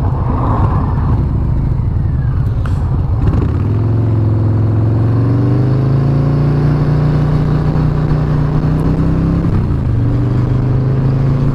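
Harley-Davidson Ultra Limited's V-twin engine pulling under acceleration, its pitch climbing steadily for several seconds, then dropping with an upshift near the end. Wind noise on the microphone covers the first few seconds.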